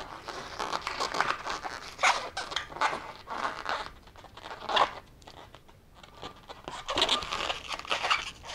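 Half-inflated latex 260 twisting balloons rubbing and squeezing in the hands, a run of rubbery scrapes with a quieter spell about halfway through.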